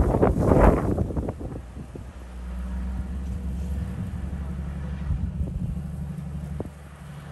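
Wind buffeting the microphone for the first second or so, then a vehicle's engine running with a steady low hum.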